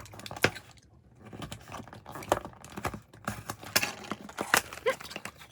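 Plastic packaging being handled while unboxing small goods: irregular crinkles and light clicks, with a quieter moment about a second in.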